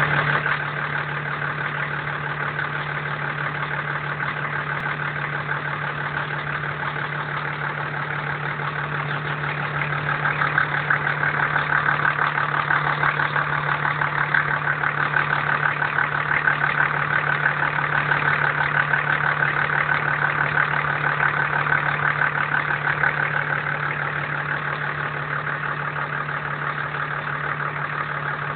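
Engine identified as an HD-T, running steadily at idle with a fast, dense ticking knock over its drone. It gets louder about a third of the way in and eases back later. The knock is the fault being shown.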